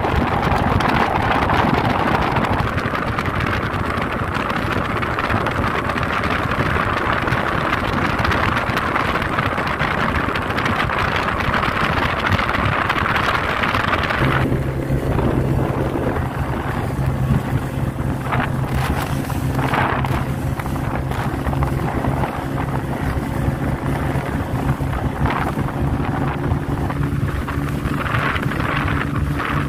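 Outboard-powered speedboat running at speed on open water, with wind buffeting the microphone over the rush of water and the engine. About halfway through, the wind drops back and a steady outboard engine drone with a clear pitch comes forward, with occasional gusts of spray and wind.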